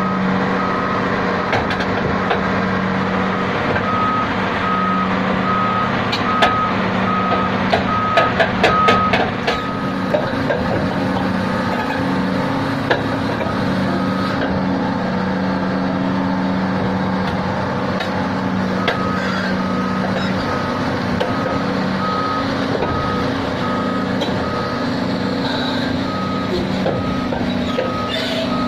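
Heavy machinery's reversing alarm beeping at a steady pulse over a large diesel engine running. The beeping goes for several seconds, stops, and starts again later. A burst of metallic clanks comes about six to nine seconds in.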